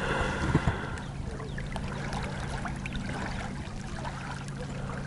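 Small waves lapping and trickling at a lakeshore, a steady low hum underneath.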